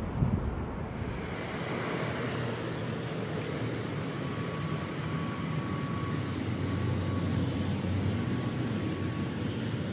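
Distant jet airliner engines running, a steady rumble with a faint whine through the middle, and a gust of wind thumping the microphone just after the start.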